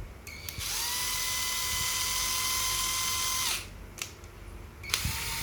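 Cordless drill run with no load. The motor spins up to a steady whine, holds for about three seconds and winds down. A click follows, and it starts again near the end.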